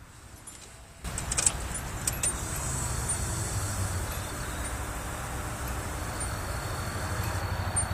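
Freshly installed Walbro 255 litre-per-hour in-tank electric fuel pump priming with the ignition on and the engine not running. It starts abruptly about a second in, with a few clicks just after, runs steadily, and cuts off suddenly at the end.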